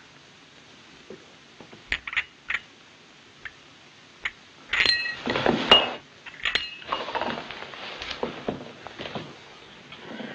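A china coffee cup clinking and rattling on its saucer, with a few sharp knocks before and a louder run of ringing clinks about halfway. After that come a few seconds of rustling and knocks as a man slumps into a chair.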